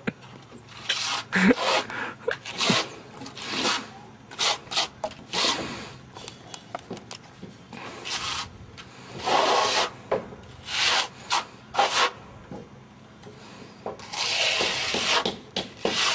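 Steel trowel scraping and spreading coloured finishing render on a wall in quick, irregular strokes, with longer scrapes about nine seconds in and again near the end.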